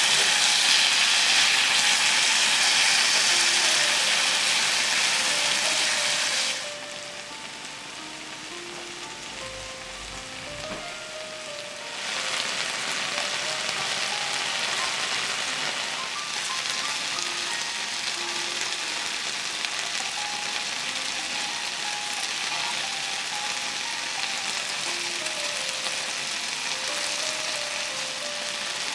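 Spicy sauced chicken feet and scallions sizzling and frying in oil in a cast-iron skillet while being stirred. About a quarter of the way in, the sizzle drops much quieter for about five seconds, then comes back steady.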